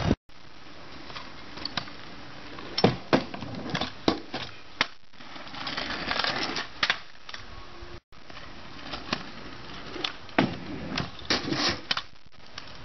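Stunt scooter riding on asphalt: wheels rolling with a gritty hiss, broken by a string of sharp clacks and knocks as the deck and wheels hit the ground on tricks and landings.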